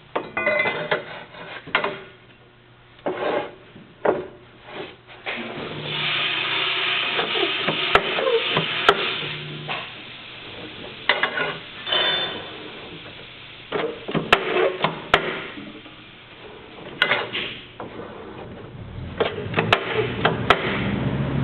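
Steel chainplate being worked in a 45-ton hydraulic press: irregular metal clanks and scraping, a few seconds of steady rushing noise around the middle, and several sharp clicks. A low hum comes in near the end.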